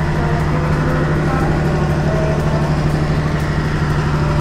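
Diesel train engine running with a steady low drone as the train rolls slowly through a station.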